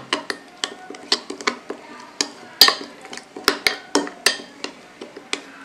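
A plastic spoon stirring thick yogurt and spice marinade in a glass bowl, with irregular clicks and scrapes as the spoon knocks and drags against the glass; one sharper knock about two and a half seconds in.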